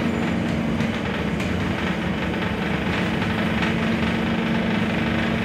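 Scania articulated city bus heard from inside the passenger cabin: a steady engine hum with a constant droning tone over a low rumble.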